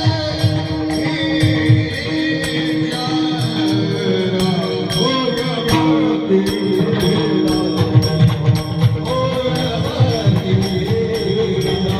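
Kirtan devotional music: a drum and jingling hand cymbals keep a steady beat under held melodic tones.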